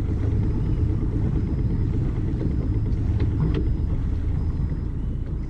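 Steady low engine rumble of a large fishing boat's diesel running close by as it manoeuvres, with faint high beeps repeating about once a second.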